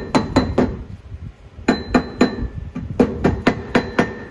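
Rubber dead-blow mallet striking the edge of a Mazda RX8 front wheel hub, driving the hub and bearing assembly evenly into the steering knuckle. About a dozen quick blows come in short runs of three or four, each with a brief metallic ring.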